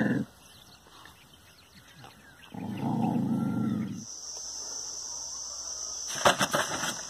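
A dog growling low at its own reflection in a mirror for about a second and a half, a couple of seconds in. Near the end, a quick cluster of sharp clicks.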